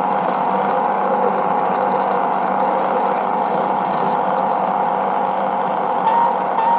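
LGB garden-railway model VT 98 railbus running along the track: a steady mechanical running sound with a constant whine, its pitch shifting slightly near the end.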